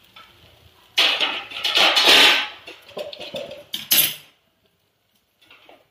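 Kitchen utensils and a pan being handled: a loud scraping, clattering noise starting about a second in and fading, then a sharp metal clink near four seconds.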